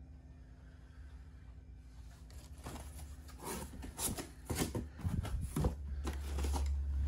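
Cardboard box flaps and packing being handled and rustled during unboxing: irregular scrapes and rustles starting about two seconds in. A low steady rumble comes in past the middle.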